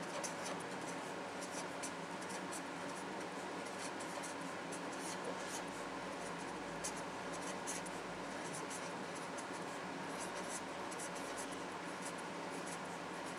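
Pen writing on paper, a run of short, irregular scratching strokes.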